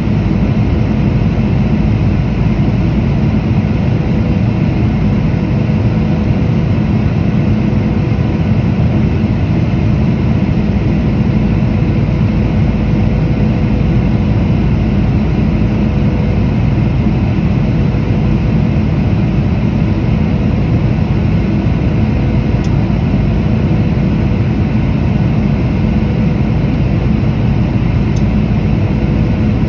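Steady cabin noise of a Boeing 737-800 in flight, heard from a window seat beside its CFM56 engine: a loud, deep rumble of engine and airflow with a faint steady hum on top.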